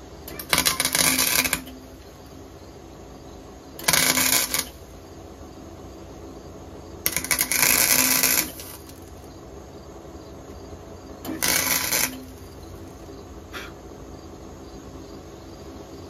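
Electric arc welder crackling in four short bursts of about a second each, the third the longest: tack welds laid through small drilled holes to join two steel strips. A short click follows near the end.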